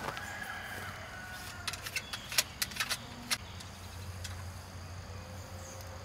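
Light clicks and knocks of fishing gear being handled on the floor of an SUV's cargo area as a fly rod in its sock is taken from its tube, a run of them about two to three seconds in, over a steady low hum.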